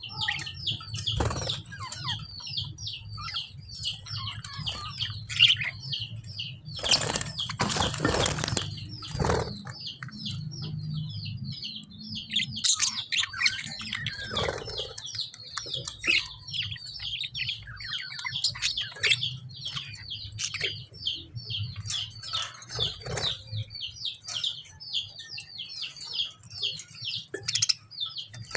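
Caged lovebirds chirping in fast, steady runs of several high chirps a second. About seven seconds in comes a loud burst of wing flapping lasting two to three seconds. A faint low hum runs underneath.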